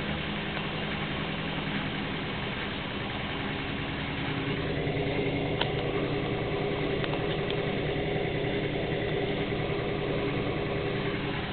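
Gorenje front-loading washing machine running its extra spin cycle, the drum and motor making a steady hum. About four to five seconds in, the motor note shifts and the sound grows a little louder, with a few faint clicks.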